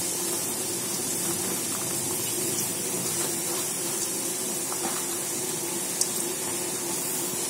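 Sliced onions sizzling in hot sunflower oil in a wide metal pan, a steady hiss, with one sharp tick about six seconds in.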